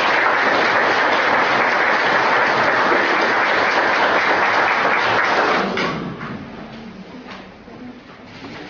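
Audience applauding: dense, steady clapping that dies away about six seconds in.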